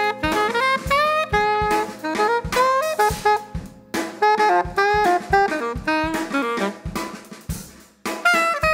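A jazz-funk band playing live: a saxophone runs a quick melodic line over drum-kit hits, with a held low note underneath. The band drops out briefly about halfway, then comes back in.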